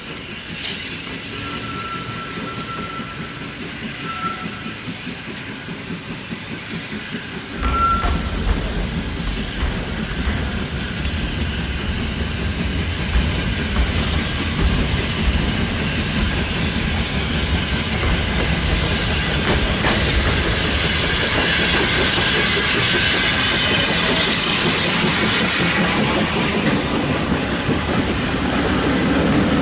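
A small steam tank locomotive draws near and passes, hauling a train of passenger coaches, growing steadily louder. Steam hiss builds, with the coach wheels clacking over the rail joints as they go by.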